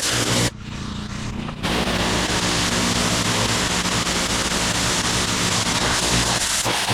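Gas-engine pressure washer running steadily with the hiss of its spray, cutting out briefly about half a second in and returning about a second later.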